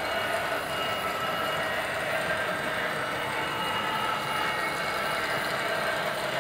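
Model freight train running steadily: the DCC sound decoder's Class 66 diesel engine sound mixed with the rolling noise of the covered steel-coil wagons on the track.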